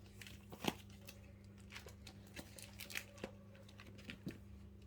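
Pages of a trading-card binder being turned and handled: faint, scattered crinkles and soft taps.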